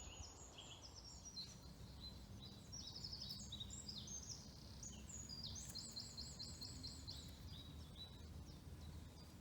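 Songbirds singing in woodland: runs of short, high, quickly repeated notes, busiest in the middle, over a faint low rumble of wind.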